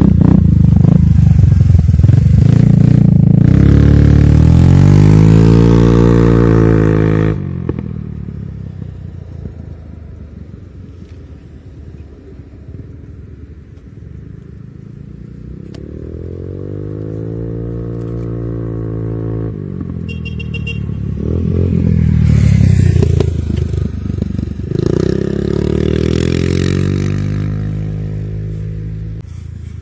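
Kymco Xciting 250 scooter with a replica Akrapovič exhaust accelerating away, its single-cylinder engine note rising in pitch, loud for the first seven seconds and then dropping off suddenly. After a quieter stretch the engine is heard again, revving up and down and growing loud about two thirds of the way through before fading.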